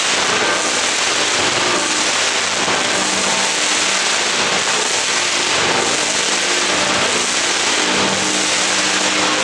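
Fireworks on a ceremonial cart going off in a dense, continuous crackling hiss, steady throughout with no separate bangs standing out.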